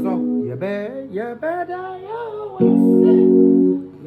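Electronic keyboard playing a praise-style passage in F sharp: a melody line that slides and bends in pitch, then loud held chords from a little past halfway.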